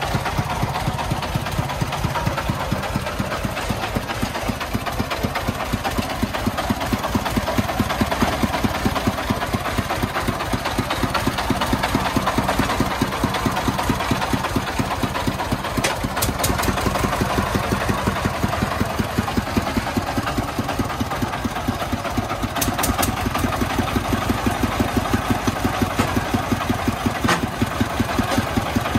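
Công nông truck's single-cylinder diesel engine running steadily at idle, with an even, rapid chugging beat.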